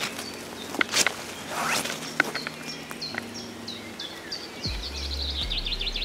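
Footsteps on a forest path, with a few sharp clicks, while small birds chirp repeatedly. Near the end the birds break into a quick run of falling chirps, over a low rumble.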